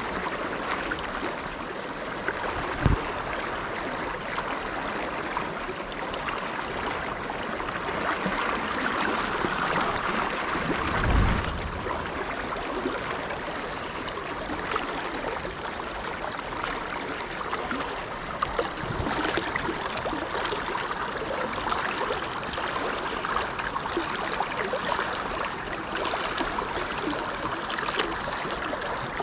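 Mountain stream water flowing over rocks, a steady rushing hiss. Two dull low thumps cut in, about three seconds and about eleven seconds in.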